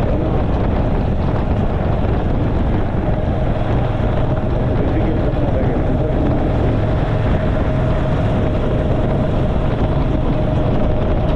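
A motorcycle on the move: wind rushing over the microphone and the engine's drone, with a faint steady tone running through it.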